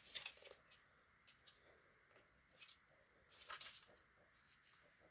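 Faint, scattered clicks and scrapes of hard plastic toy parts being handled as blasters are worked into their sockets on a Masters of the Universe Origins Stridor toy; the loudest handling sound comes about three and a half seconds in.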